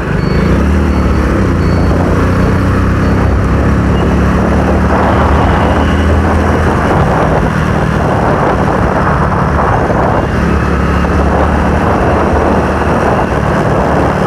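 Motorcycle engine running steadily at a cruising speed, heard from the rider's seat, with a rushing noise of wind over the microphone that swells and fades.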